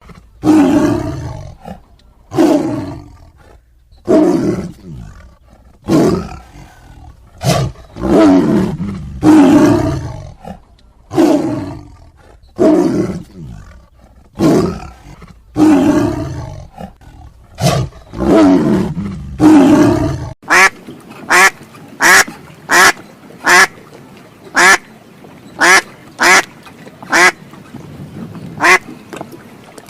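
A large animal gives loud roaring calls, one every second or two. About twenty seconds in, this cuts to a duck quacking, short repeated quacks about two a second.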